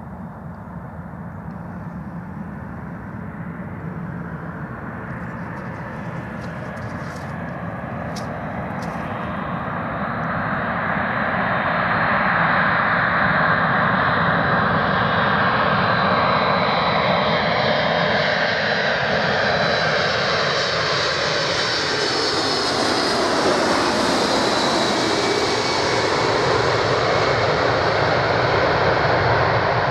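Four turbofan engines of a Boeing 747-400 on final approach with gear down, growing louder as the jumbo jet comes in. The jet passes close overhead about three quarters of the way through, and its engine whine slides down in pitch as it goes by. The engine noise stays loud as the jet moves away toward the runway.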